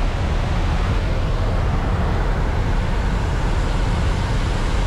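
Steady rush of wind and engine noise in the cabin of a small high-wing plane flying with its jump door open, a constant deep rumble with no breaks.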